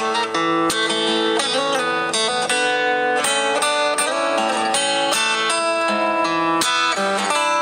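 Background music led by plucked guitar notes: an instrumental stretch of a song with no singing.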